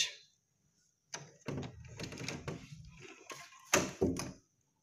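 A door knob being turned and its latch clicking as a wooden door is opened: a run of clicks and short rattles starting about a second in, the loudest click near the end.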